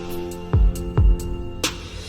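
Background music: sustained instrumental notes over a steady beat with soft drum hits.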